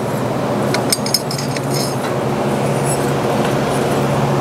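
A few light metal clinks about a second in, a steel parallel being slid out of a milling-machine vise, over a steady machine hum.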